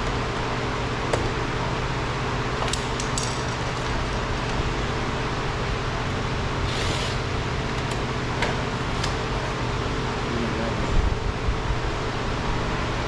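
Steady fan-like machine hum, with scattered light clicks and taps and a few louder knocks near the end.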